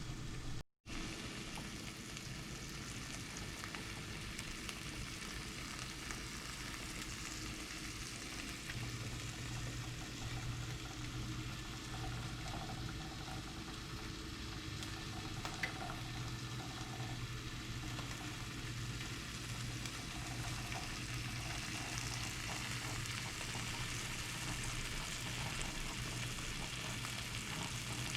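Pieces of pre-cooked chicken sizzling and crackling steadily in a frying pan as they reheat, over a low steady hum.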